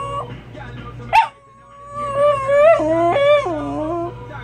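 Dogs crying: long, high, wavering howling whines, with a short sharp yelp about a second in, then louder cries that step up and down in pitch.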